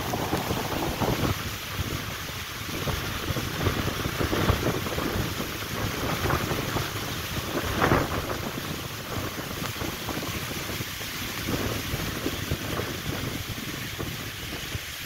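Strong cyclone wind gusting through trees and buffeting the microphone, a rushing noise that swells and eases, with the strongest gust about eight seconds in.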